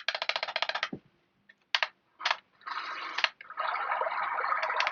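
Alarm clock's small built-in speaker playing an ambient water nature sound, a steady hiss like running water, after a short train of quick ticks and two brief blips.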